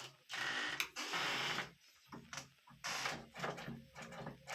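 Tool work on a door during lock fitting: several short bursts of mechanical working noise, with a sharp click about a second in.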